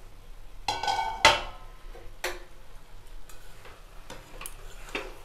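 Metal spatula clanking against a metal kadai, with a ringing clang about a second in and another a second later, then lighter taps and scrapes as thick curry is stirred.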